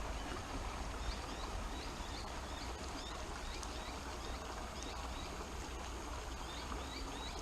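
Steady rush of a flowing creek, with low wind rumble on the microphone. Short, high, rising chirps repeat about twice a second through much of it.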